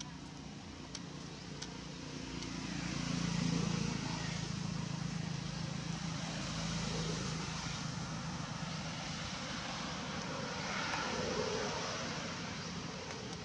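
A distant motor engine droning steadily over an outdoor background hiss, swelling to its loudest a few seconds in and then holding level.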